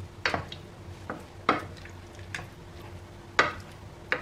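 Wooden spoon stirring chopped vegetables in simmering sauce in a nonstick pan, knocking and scraping against the pan about six times at uneven intervals, over a faint steady hum.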